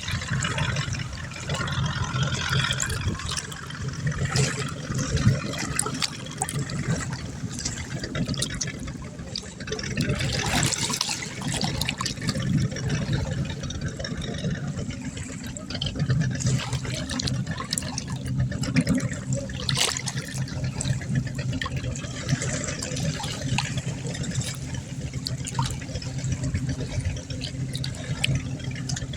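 Water splashing and trickling, with a steady low hum underneath.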